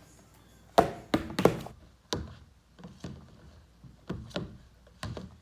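Irregular knocks and taps from slime being stirred in a bowl, the loudest cluster about a second in, then single knocks every second or so.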